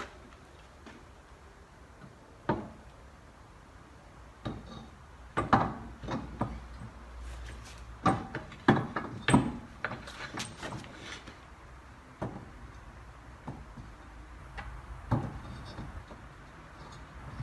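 Scattered knocks and clanks of a wheel being fitted back onto a car's hub, with a busy run of them in the middle.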